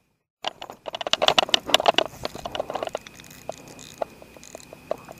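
Fishing reel's drag clicking in a fast run for about two seconds as a fish strikes and pulls line off, then slowing to scattered clicks. A faint steady high tone runs underneath.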